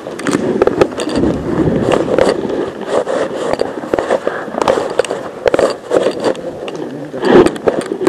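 Footsteps crunching and scraping over a debris-strewn floor, with clothing and gear rustling close to a body-worn camera: a dense, irregular run of crackles and scuffs.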